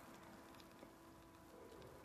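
Near silence: the faint, steady hiss of a small oxyacetylene brazing torch flame (Victor combination torch with a 000 tip) playing on the joint, with a faint steady hum and one light tick a little under a second in.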